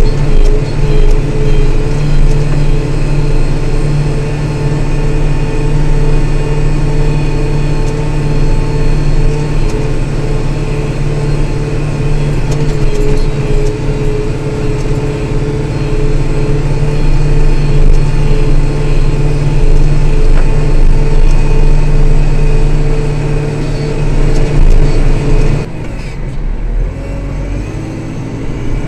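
Kubota Grand L5740 tractor's diesel engine running steadily with a steady whine over it; near the end the sound drops and grows quieter.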